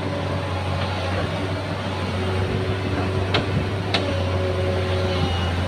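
Excavator's diesel engine running steadily, with two sharp knocks about half a second apart a little after the middle.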